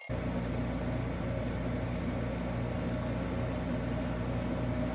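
Steady low mechanical hum with a faint noise haze, unchanging throughout.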